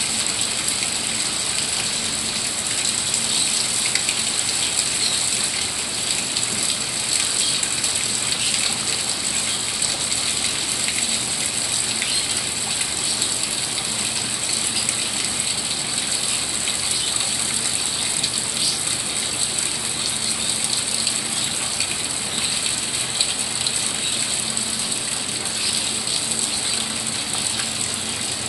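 Steady rain falling on leaves: a constant hiss with a dense patter of individual drops.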